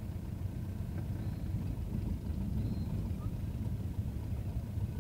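Low, steady engine rumble heard from inside a bus in traffic.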